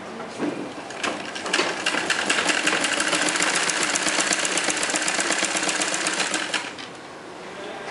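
Sewing machine stitching cloth: a couple of light clicks, then from about a second and a half in a fast, even run of stitches for about five seconds that stops near the end.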